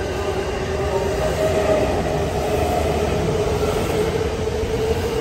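JR East E217 series electric multiple unit accelerating away from the platform, its cars passing close by: a steady rumble of wheels on rail under a whine from the traction motors that slowly rises in pitch as the train picks up speed.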